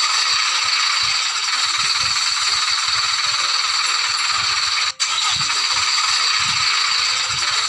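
A small motor runs steadily with a continuous mechanical rattle and a thin steady whine, cut off for an instant partway through.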